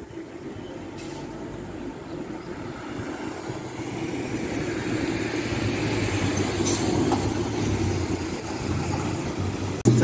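Road traffic passing close by: car and motorcycle engines and tyre noise, growing steadily louder as vehicles approach and pass about halfway through.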